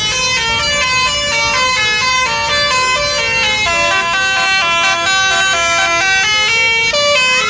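Bus basuri melody horn playing a quick tune of short, steady notes that step up and down in pitch.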